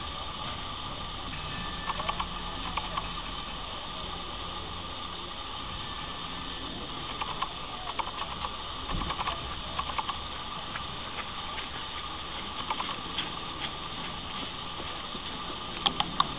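Railway carriage rolling slowly along the track, its wheels and running gear giving scattered clicks and clanks over a steady hiss, in clusters about two seconds in, in the middle and just before the end.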